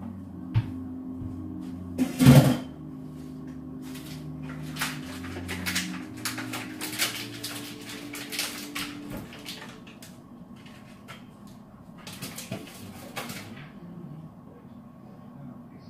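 Kitchen clatter: a loud knock about two seconds in, then scattered clicks and taps, over a low hum that fades out about nine seconds in.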